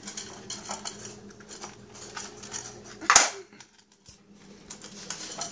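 Cats eating from bowls on a tile floor: a run of small clicks and clinks of food against the bowls, with one louder clatter about three seconds in.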